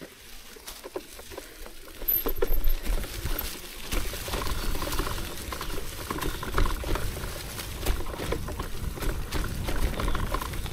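Mountain bike rolling over a forest trail: tyres crackling over leaves and stones, with many small clicks and rattles, getting louder about two seconds in.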